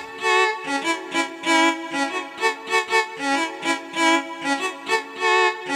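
Cumbia music played over a sonidero sound system, a violin carrying the melody over a steady, pulsing beat.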